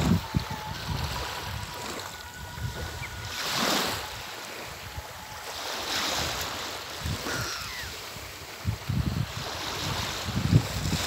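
Small waves lapping and washing onto a sandy, pebbly shore, swelling a few times. Wind rumbles on the microphone at the start and near the end.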